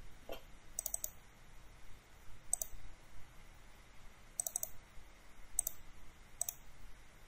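Computer mouse buttons clicking: a few single clicks and several quick double clicks, spread irregularly over several seconds.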